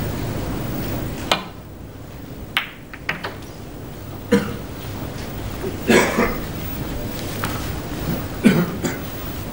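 Snooker break-off: a sharp click of the cue ball sent down the table about a second in, then a knock as it strikes the pack of reds, with a couple of lighter ball clicks after it. Then audience coughs, the loudest about six and eight and a half seconds in.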